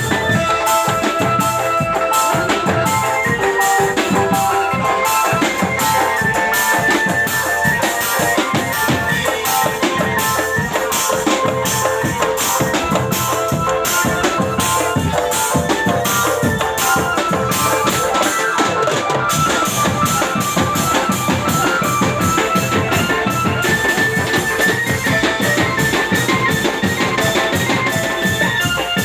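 Indonesian drum band (drumben) playing: a steady marching beat of snare and bass drums with a melody of held notes over it.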